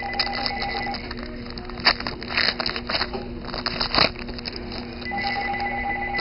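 A telephone ringing in the background: one ring ends about a second in and the next begins near the end. In between, a trading-card pack wrapper crinkles and crackles as it is torn open.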